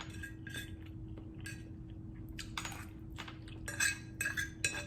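Cutlery clinking and scraping against a dish of noodles while eating, a string of short clinks that comes thickest and loudest near the end, over a faint steady hum.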